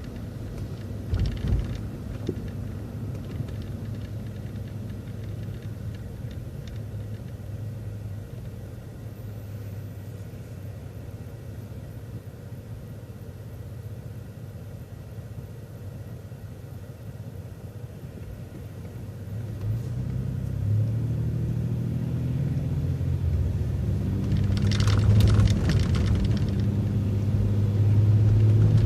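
City transit bus heard from inside the cabin: the engine rumbles low and steady, then about two-thirds in grows louder with its pitch stepping up as the bus pulls away and accelerates. A thump early on and a brief hiss near the end.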